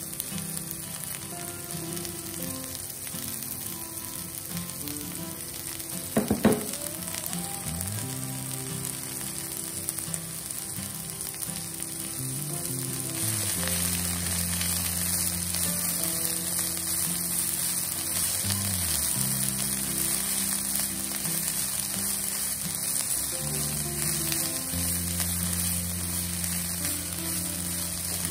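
Chopped sweet leaf (cekur manis) sizzling in hot oil in a pan as it is stir-fried with a spatula, with a brief knock about six seconds in. The sizzle grows louder about halfway through.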